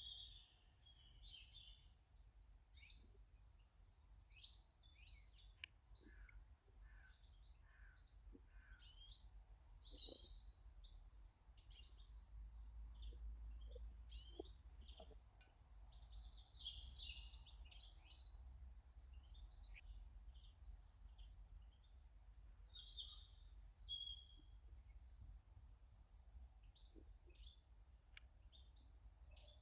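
Small garden birds chirping and twittering, many short high notes scattered throughout, over a low steady rumble.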